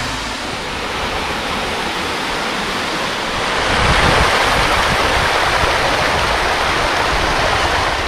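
Mountain stream water rushing over rocks, a steady noise that swells louder about halfway through.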